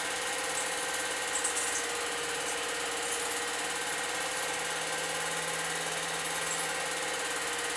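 8mm film projector running: a steady mechanical whir with a constant hum.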